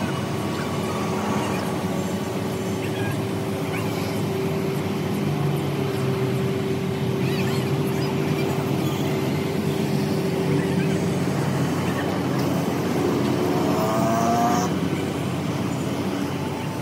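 An engine running steadily, with a low hum and a held tone that fades away about two-thirds of the way through.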